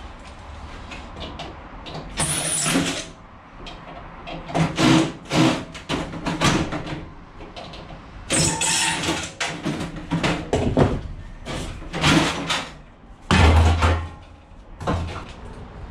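Irregular clanks, rattles and scrapes of metal parts being worked loose and pulled out of a scrap item by hand. There is a heavier thud near the end.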